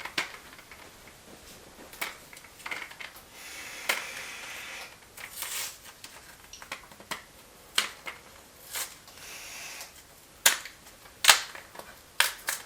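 Plastic packaging of an M.2 SSD being pried and torn open along its perforation: crinkling and tearing, with several sharp snaps of plastic, the loudest near the end.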